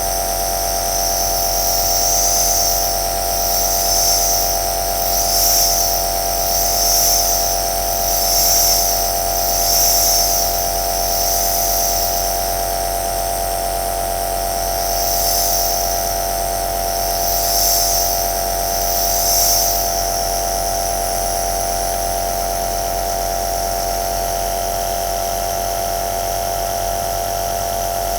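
Electric nebulizer compressor running steadily, a motor hum with a high airy hiss. For the first two-thirds the hiss swells and fades about every one and a half seconds, then it settles to an even drone.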